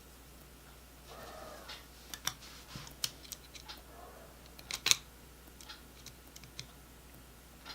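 Small metal hand tools and parts being handled: scattered sharp clicks and taps, the loudest a cluster about five seconds in, with two brief scraping squeaks.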